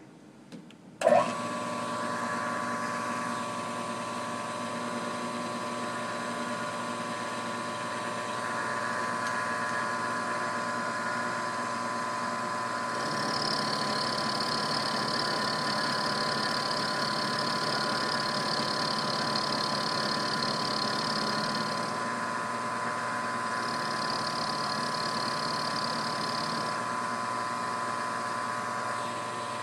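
Milling machine switched on about a second in, its spindle motor then running with a steady whine. An end mill cuts a steel workpiece, adding a higher hissing cutting noise from about a third of the way in for several seconds, and again for a few seconds near the end.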